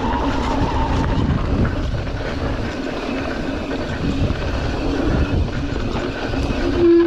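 Mountain bike running down a rough dirt trail: a steady rumble of tyres over the ground. Near the end the brakes go on with a loud, steady squeal, the brakes the rider finds unusually loud and says are going out at the back.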